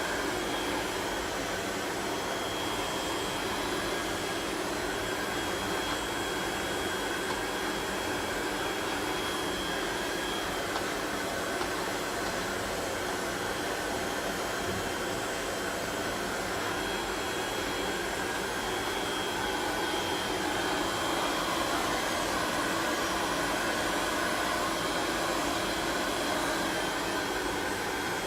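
Steady machine noise, an even rushing hiss with a faint high-pitched whine in it, growing slightly louder about twenty seconds in.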